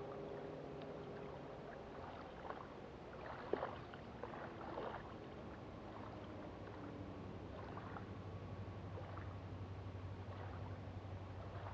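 Faint, steady low engine hum from a distance, settling into an even low drone about halfway through, over gentle lapping water. A few soft knocks come near the middle.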